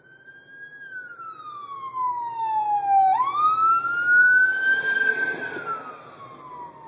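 Ambulance siren wailing, its pitch slowly falling, sweeping back up about three seconds in, then falling again. It grows much louder over the first three seconds as the ambulance comes up behind, heard from inside the car.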